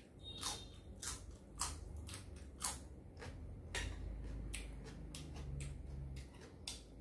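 Close-up crunching of a raw winged bean being bitten and chewed: sharp crisp crunches, about two a second.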